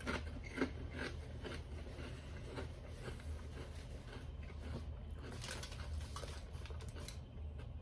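A person chewing a mouthful of food, with soft irregular clicks and crunches.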